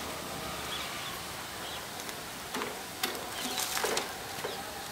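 Outdoor background hum with a few faint bird chirps, and a short run of clicks and rustles from about two and a half to four seconds in.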